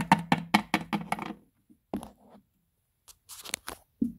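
Handling noise close to the microphone: a quick run of clicks and scrapes in the first second and a half, then a few fainter ones near the end.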